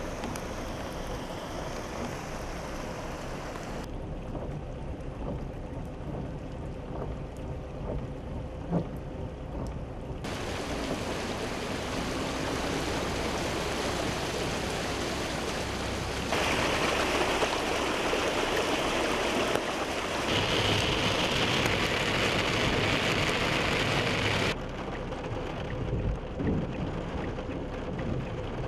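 Steady noisy rush of heavy rain and fast-flowing muddy floodwater. The level and brightness jump abruptly several times where separate clips are cut together, and there is one short sharp knock about nine seconds in.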